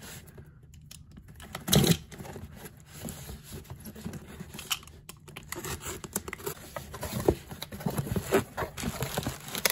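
Box cutter slicing through packing tape on a cardboard mailing box, with tape tearing and cardboard flaps scraping and rustling in irregular strokes. The loudest scrape comes about two seconds in.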